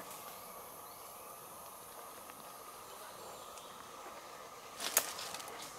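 Steady chorus of rainforest insects, with a brief crackle about five seconds in.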